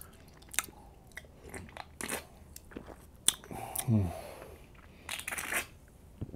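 Quiet, close-miked mouth sounds of a man drinking from a soda can: scattered wet clicks and swallows, with a short voiced sound falling in pitch about four seconds in.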